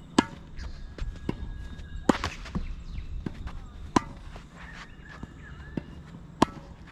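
Tennis ball struck by a racket in a volley rally: four sharp pops about two seconds apart, with lighter taps and footsteps between them.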